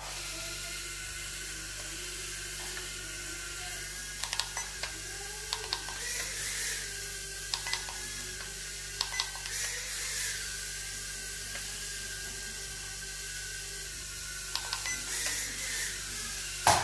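Eachine E010 mini quadcopter's tiny brushed motors and propellers starting up and whining steadily as it lifts off and hovers, the pitch rising and falling a few times with the throttle. A few short clicks come in now and then.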